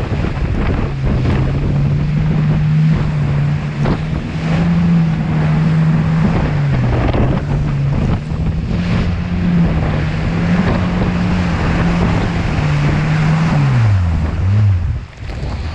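Personal watercraft (waverunner) engine running at steady speed, with heavy wind noise on the microphone and the hull slapping over chop. Near the end the engine note drops as the throttle eases off.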